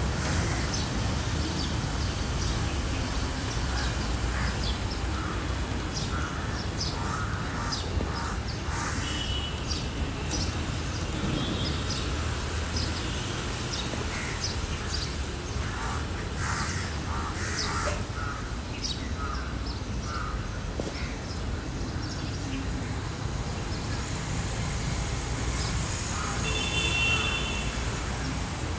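Crows cawing now and then over a steady low rumble of outdoor background noise.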